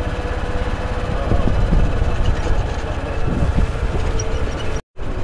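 Golf-cart shuttle driving along a path: a low rumble with a thin steady whine from the cart. The sound cuts out for an instant near the end.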